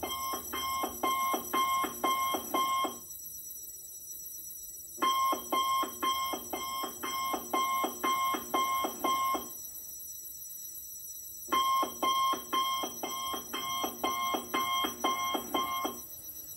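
Alarm clock going off: quick repeated beeps, about two a second, in runs of four or five seconds broken by pauses of about two seconds.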